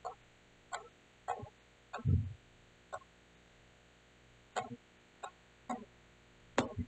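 Computer mouse clicking and its scroll wheel turning: about ten short, quiet clicks at irregular spacing, with a louder dull thump about two seconds in.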